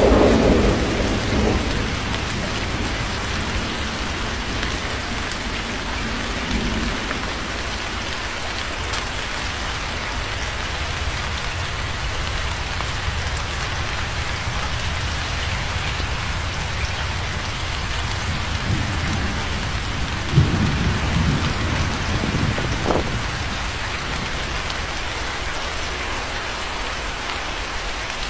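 Steady rain falling, with rolling thunder: a rumble that dies away in the first couple of seconds, then another peal about two-thirds of the way through, opening with a sharp crack.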